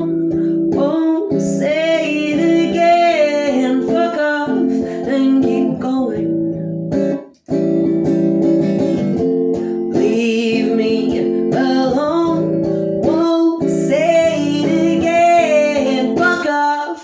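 A song: strummed acoustic guitar under a sung vocal line. The music drops out briefly about seven and a half seconds in.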